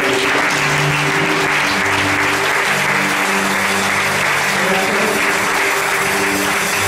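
A congregation breaks into applause just as a sung worship song ends, clapping steadily throughout, over held instrumental chords that keep playing underneath.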